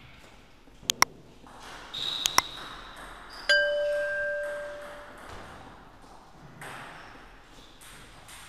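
Subscribe-reminder sound effects: two quick pairs of mouse clicks, then a bell notification ding about three and a half seconds in that rings out for about a second and a half.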